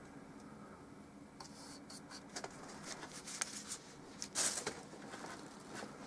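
Light rustles and clicks of small objects being handled. They get busier from about a second and a half in, with one louder rustle about four and a half seconds in.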